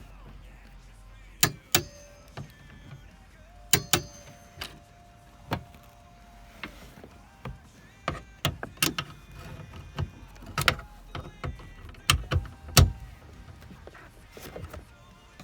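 Irregular sharp clicks and knocks of hand work on car interior parts, some followed by a brief ringing tone, with the loudest knocks near the end.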